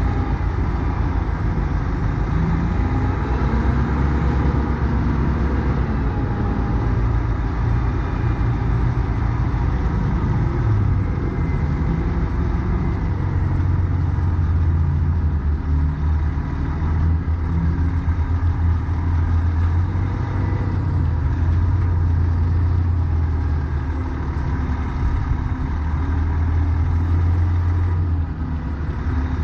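Semi-truck's diesel engine running steadily at low revs while the rig is slowly reversed.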